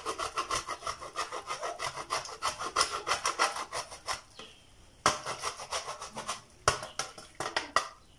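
Cheese being grated by hand on a grater: quick rasping strokes, about six a second, that stop about four seconds in and come back as a few separate strokes near the end.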